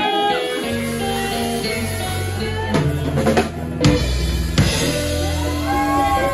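Live blues band playing electric guitars, bass and a drum kit. Bass notes come in under the guitar about a second in, and the drummer plays a fill about three seconds in, followed by a sharp hit.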